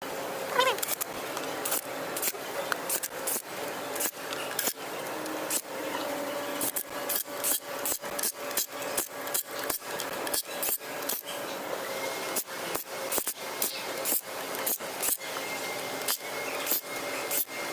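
Repeated hand scraping strokes on a hard surface, about two a second in uneven runs.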